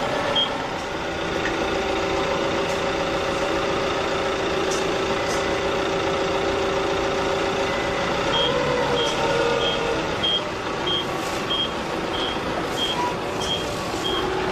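Forklift engine running steadily, with its reversing warning beeper sounding about two beeps a second briefly at the start and again from about eight seconds in.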